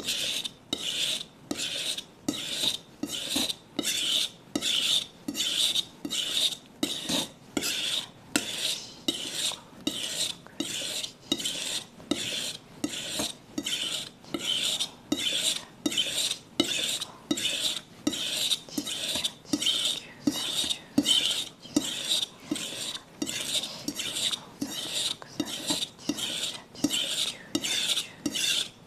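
A kitchen knife is drawn over a wet whetstone (sharpening stone) in steady, evenly spaced strokes, nearly two a second. Each stroke is a short scraping rasp with a brief gap before the next. The blade is held at a shallow angle and pulled one way only, toward the sharpener.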